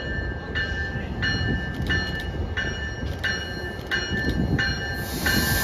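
MBTA commuter rail train approaching with its warning bell ringing steadily, about three strikes every two seconds, over the low rumble of the train. A hiss joins near the end.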